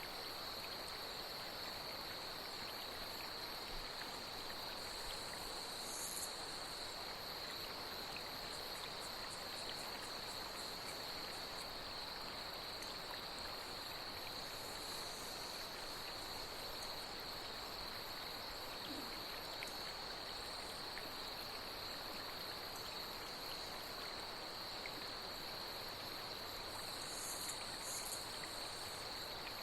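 Night insects trilling steadily on one high pitch over the even hiss of flowing water, with a few brief higher chirps.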